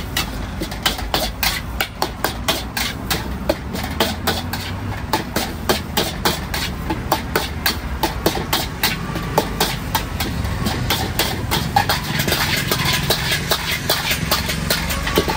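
Metal spatula clinking and scraping against a steel wok as chicken kottu is stir-fried, about four or five irregular clinks a second. A steady low rumble runs underneath, and a hiss rises near the end.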